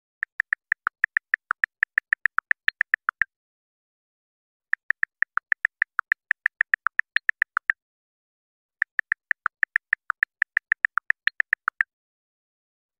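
Typing sound effect: three runs of quick key clicks, about seven a second, each lasting about three seconds and ending with a heavier clack, with pauses between them.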